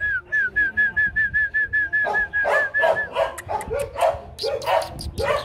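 Young Rottweiler puppies whimpering and squeaking while they nurse, with short clicky sounds among the cries. For the first three seconds a rapid run of high, even chirps, about five a second, sounds over them.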